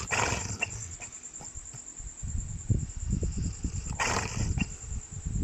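Dog snoring: a low, irregular rattling snore that sets in about two seconds in, with short breathy rushes of air at the start and again about four seconds in.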